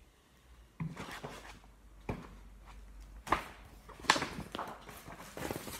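Pages of a picture book being handled and turned: a few short knocks and rustles, the loudest about four seconds in.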